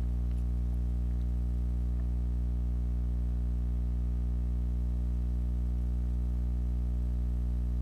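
A steady low hum that holds unchanged, with nothing else over it.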